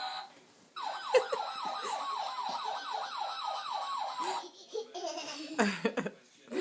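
Ambulance siren in a fast yelp, about four rising sweeps a second, starting suddenly about a second in and stopping some four seconds later. A young child laughs near the end.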